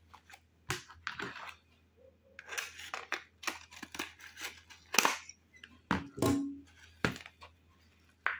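Thin clear plastic makeshift pot crackling and snapping as it is cut with pruning shears and worked off an orchid's roots. The crackles are irregular, with the loudest snaps about five and six seconds in.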